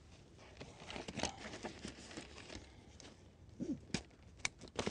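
Nylon backpack fabric and webbing rustling as the pack is handled. Near the end come a few short sharp clicks as a plastic compression-strap buckle is worked.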